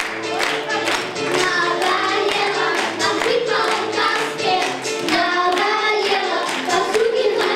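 Children singing along to music, with hands clapping steadily in time to the beat.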